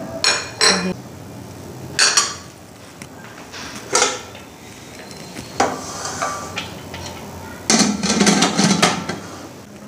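Stainless steel pressure cooker and kitchen utensils clinking and knocking a few times as spices go in. About eight seconds in comes a longer run of metal clatter as the lid is fitted on the cooker.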